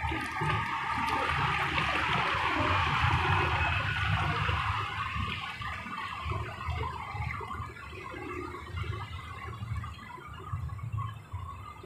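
Water pouring in a steady stream from a plastic basin into the narrow mouth of a one-litre plastic bottle, splashing and gurgling as the bottle fills. The pouring is loudest in the first few seconds and eases off later.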